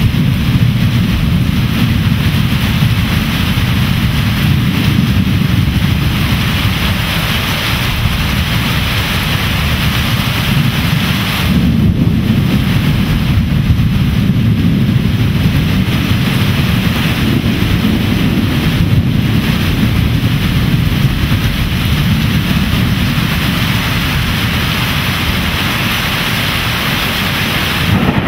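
Torrential rain pouring down in a steady loud hiss, under a continuous deep rumble of rolling thunder that swells and eases without any sharp crack.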